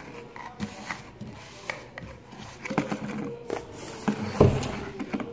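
Handling noise: a plastic bowl and other objects knocked and shifted on a wooden table. It comes as scattered light clicks and knocks, with a louder thump about four and a half seconds in.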